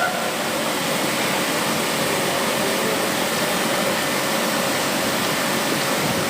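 Steady rushing noise, even and unbroken, with a faint steady hum under it.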